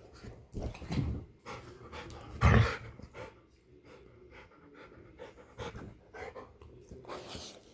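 Dogs panting during rough play between a pit bull and a chihuahua, with one louder burst about two and a half seconds in.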